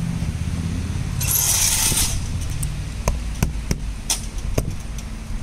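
Backing tape peeled off the edge of a newly fitted car windscreen with a short ripping hiss about a second in, followed by a handful of sharp clicks and taps as the glass edge is worked by hand, over a steady low background rumble.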